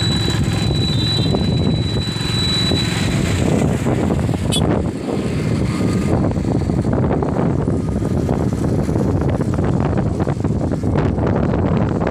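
Wind rushing and buffeting over the microphone of a moving vehicle, mixed with the steady drone of its engine and road noise. A faint high whistle runs through the first few seconds.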